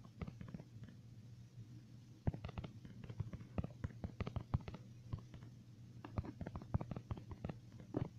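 Irregular run of small clicks and taps over a steady low hum, coming in two busy spells: from about two seconds in and again from about six seconds in.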